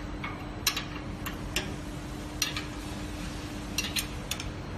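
Scattered sharp metallic clicks and clinks, about seven, from hand-setting and locking the grinder's size adjustment, over a faint steady hum; the grinder itself is not running.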